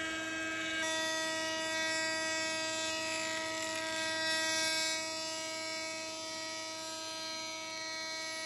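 Delta thickness planer running with a steady motor whine while a glued pair of wood window-trim boards in a jig feeds through it to be planed thinner.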